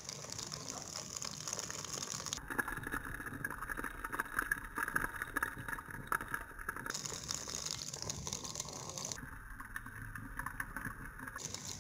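Hot oil sizzling and bubbling around chocolate in a glass: a steady crackling hiss that changes character abruptly a few times.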